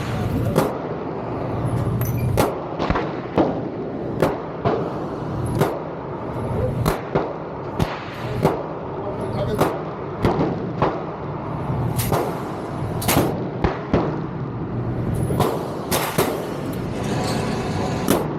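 Gunfire at a shooting range: sharp single shots at irregular intervals, about one or two a second, over a steady background din.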